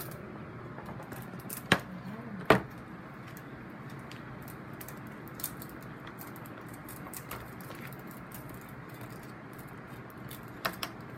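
Plastic toy packaging being handled and opened: light crinkling and rustling, with two sharp snaps under a second apart about two seconds in and two more clicks near the end.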